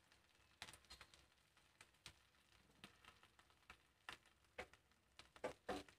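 Near silence with faint scattered ticks and crackles, a little more frequent near the end, from a gas stove just turned off with charred sal-leaf chicken parcels still on its burners.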